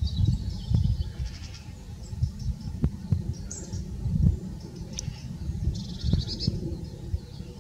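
Wind rumbling and buffeting on the microphone, with short bursts of high, rapid bird calls three times.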